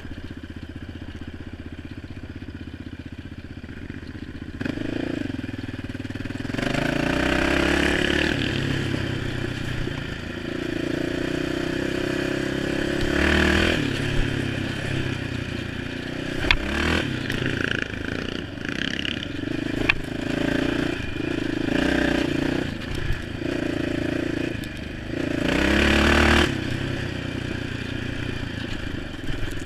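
ATV engine revving up and easing off several times under throttle on a rough dirt trail, with a few sharp knocks as the quad bounces over the ground.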